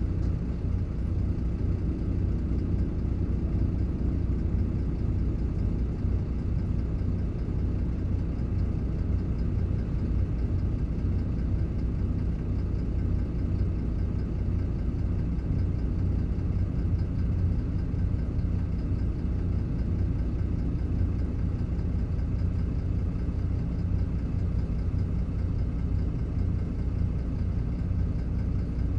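Diesel engine of a MAN Lion's City LE (A78) bus running steadily, heard from inside the passenger cabin as an even low drone with no gear changes or changes in speed.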